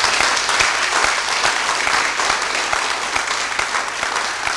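Audience applauding: many hands clapping together in a dense, steady patter that eases off slowly.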